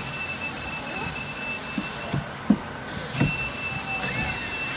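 Steady background hiss with a thin high whine, dropping out for about a second midway, and a few light knocks and bumps as hands work at clamps and wiring under a boat's bench seat.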